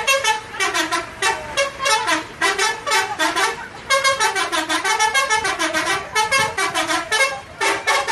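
Bus 'telolet' horn, a multi-tone musical air horn, playing a rapid melody of quick pulsing notes that rise and fall in pitch, in phrases with short breaks between them.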